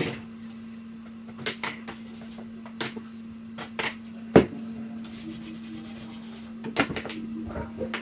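Scattered light clicks, taps and a brief scrape from small tools and multimeter probes being handled on an electronics repair bench, with one sharper click about halfway through, over a steady low hum.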